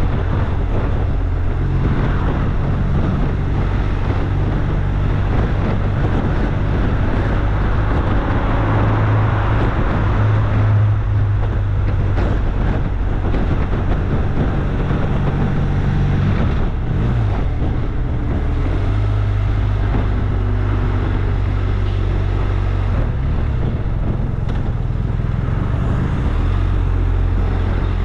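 An engine running steadily, its low hum shifting in pitch a few times, with a rough rushing noise over it.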